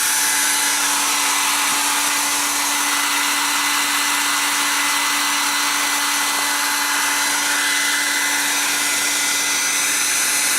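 Small electric motor-driven blower running steadily: a constant rush of air with an even hum.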